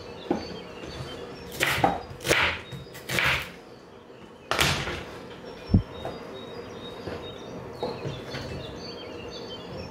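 Chef's knife cutting an onion on a plastic cutting board: a few separate slicing strokes, a sharper cut about halfway through followed by a short dull thud, then only light taps as the pieces are handled.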